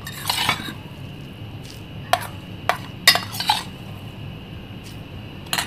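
Metal spoon scraping and clinking against stainless-steel bowls as coarse crushed spices are scooped from one bowl and tipped into another: a short scrape at the start, then several separate clinks and ticks.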